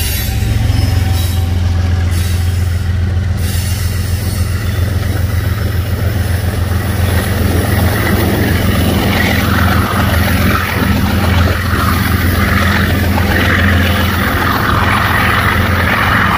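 A train going by: a steady, loud low rumble of diesel locomotive engines, with the rushing noise of steel wheels on the rails growing louder from about halfway through.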